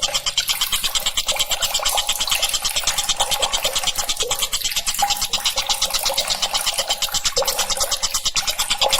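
Tengkek buto kingfisher calling in a fast, continuous rattling trill of high notes, about ten a second, with short lower notes dropping in every second or so.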